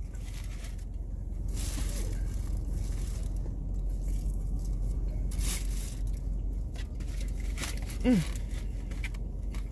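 Handling noise from a cardboard fried-chicken box and its paper liner, with scraping and rustling now and then, while crispy fried chicken is bitten into and chewed, over a low steady hum.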